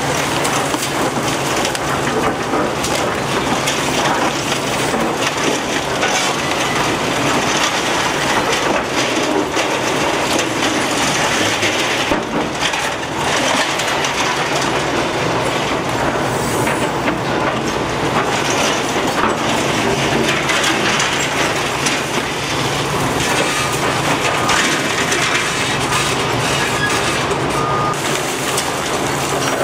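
Liebherr R944C crawler excavator demolishing a concrete building: concrete and masonry crunching, breaking and falling as rubble, over the steady run of the excavator's diesel engine.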